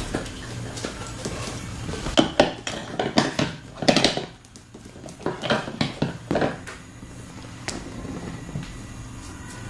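Joints cracking during a chiropractic spinal adjustment: a run of sharp pops and clicks in short clusters between about two and six and a half seconds in, the loudest near the start of the run and around the middle.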